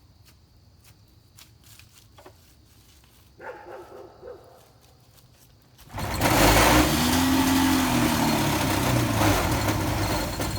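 Rotax 503 two-cylinder two-stroke engine being cranked over for about four seconds, its pitch rising and then falling away without the engine catching, just after its rebuild. A short, softer mechanical sound comes a couple of seconds before.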